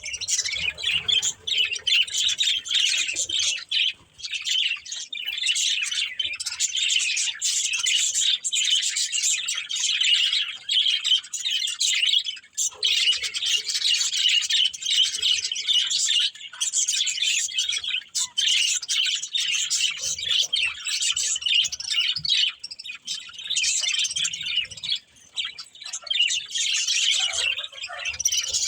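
Budgerigars chirping continuously in a dense, high-pitched, overlapping chatter with occasional squawks.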